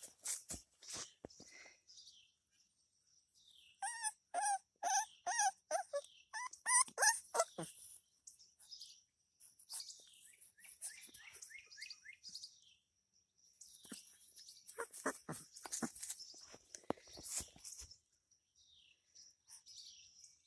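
Alapaha Blue Blood Bulldog puppy whining in a string of short high-pitched cries, about two a second, from about four to eight seconds in; later come scattered soft clicks and rustles.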